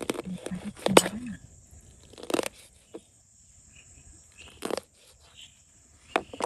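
Close-up eating noises of someone eating home-made laping: about five short, separate biting and chewing sounds spread over several seconds.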